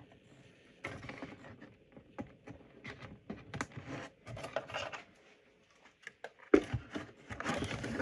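Small clicks, taps and scrapes of hands working with cables and small tools on a workbench, going quiet for a moment before a sharp click about six and a half seconds in.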